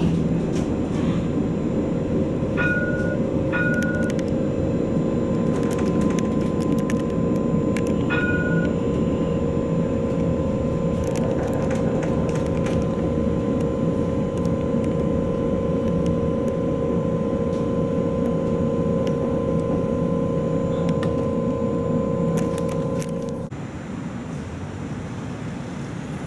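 Light-rail tram running, with a steady electric whine and a rumble; the whine cuts off suddenly near the end and the noise drops. A few short electronic beeps sound early on and again about eight seconds in.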